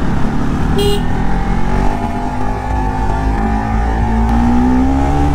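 Motorcycle engine running under way, its pitch climbing steadily over the last couple of seconds as it accelerates, with heavy wind rumble on the microphone. A short high beep sounds about a second in.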